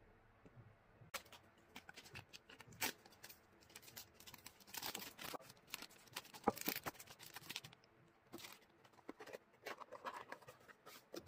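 Hands handling press-on nail packaging: soft crinkling and rustling of a clear plastic sleeve and card, with many small clicks and taps. Near the end, a white cardboard mailer box is handled, giving light taps and scrapes.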